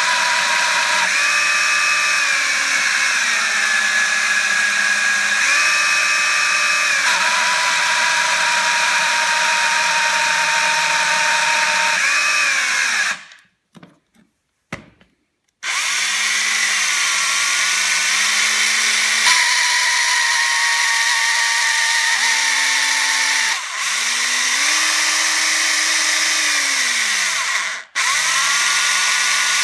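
Parkside PABH 20-Li B2 cordless hammer drill running, its motor pitch stepping and sliding up and down as the trigger speed changes. It stops about 13 seconds in and starts again a couple of seconds later, with a brief cut near the end. The run includes the strange noise the owner hears from this four-month-old drill.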